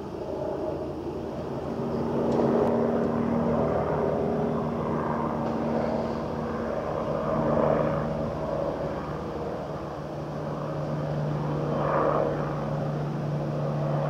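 Police helicopter flying overhead: a steady rotor and turbine drone with a low hum, growing louder about two seconds in and swelling again near the end.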